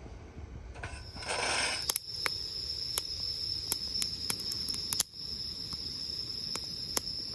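A brief noisy rustle, then insects trilling steadily at a high pitch, with sharp clicks at irregular intervals.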